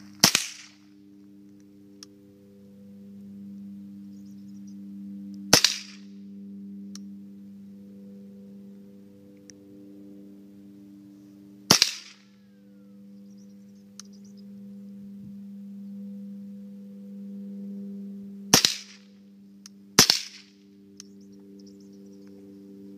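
Five single shots from a 1970s Ruger 10/22 semi-automatic .22 rifle: sharp cracks several seconds apart, the last two about a second and a half apart. A steady low hum runs underneath.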